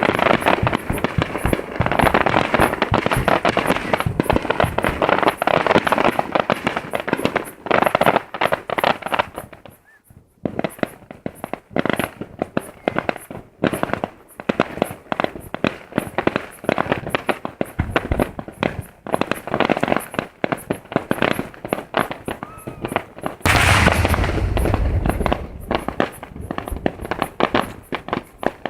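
Fireworks display: many shells bursting in quick succession with rapid crackling and popping. There is a short lull about a third of the way in, and heavy, deep booms near the end.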